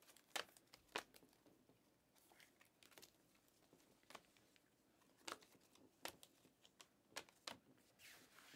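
Glossy trading cards handled and flipped one at a time, giving faint sharp clicks and snaps about once a second over a light rustle of cards sliding against each other.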